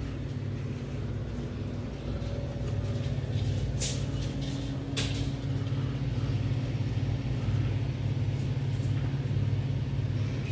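Car engine running steadily, a little louder from about two seconds in, with two sharp clicks about four and five seconds in.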